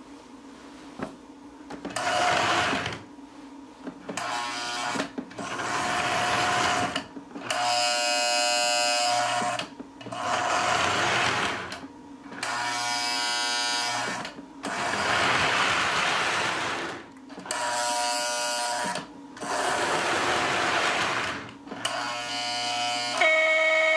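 Lionel 2383 postwar Santa Fe F-3 diesel model locomotive run in short stop-start bursts on O-gauge track: its electric motors and gears whir for a second or two at a time, about a dozen times over, alternating with stretches of steady buzzing tones. A faint steady electrical hum runs underneath.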